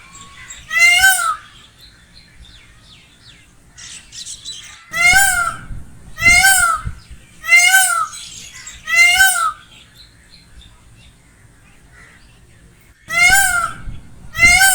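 Peacock calling, loud, high, arching wails of about half a second each: one call about a second in, then a run of four roughly a second and a half apart from about five seconds in, and two more near the end.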